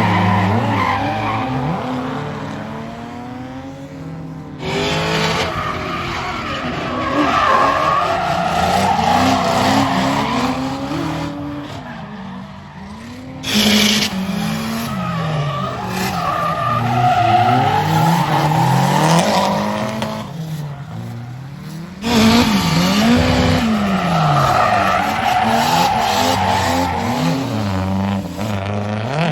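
Drift cars' engines revving hard, pitch swinging up and down with throttle, over long tyre squeal as the cars slide. The sound changes abruptly three times as one short clip cuts to the next.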